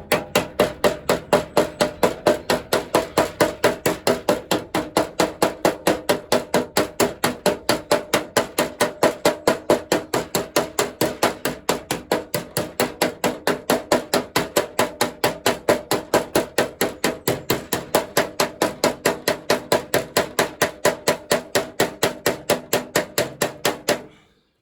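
Ball-peen hammer rapidly striking a solid rivet in a Land Rover Series 3 side panel, peening the rivet end over. The blows come about four a second with a metallic ring, then stop abruptly near the end.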